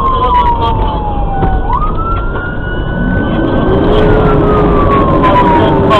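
Fire engine siren wailing over the truck's engine and road noise: the pitch slides down, sweeps back up, then slides down again. A lower steady tone joins about four seconds in, and the sound gets louder.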